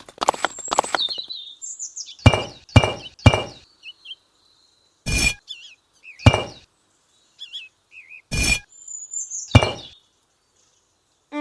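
A series of sharp clinking knocks, about seven spaced irregularly over several seconds, each with a short ring, and brief high bird-like chirps between them.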